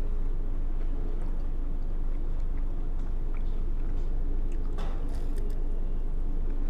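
A person chewing a crisp-shelled cheese roll over a steady low hum, with a short noise about five seconds in.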